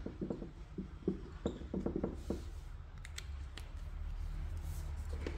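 Felt-tip marker writing on the clear front cover of a wall clock: a quick run of short squeaky strokes for about the first two and a half seconds, then a few faint clicks.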